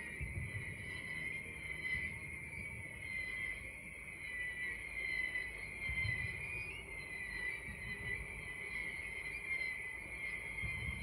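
Crickets chirping steadily, with a few low, dull thumps about a second in, around the middle and near the end.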